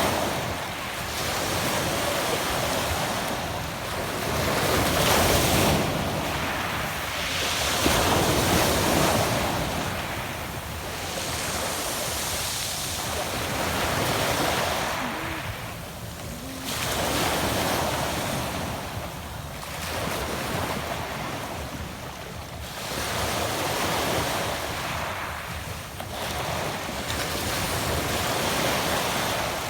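Adriatic Sea waves breaking and washing up a pebble beach, a rushing sound that swells and ebbs every few seconds.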